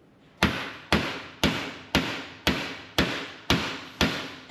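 Evenly spaced hammer blows on metal, about two a second, starting about half a second in, each one ringing briefly: driving U-joint bearing caps into a front axle shaft's yoke.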